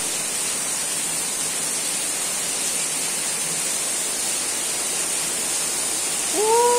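Steady downpour of rain, a constant even hiss. About six seconds in, a man's voice lets out one long drawn-out call.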